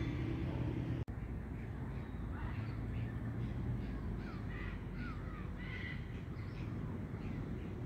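Blue-and-yellow macaws giving a string of short, harsh calls for a few seconds, over a low steady rumble.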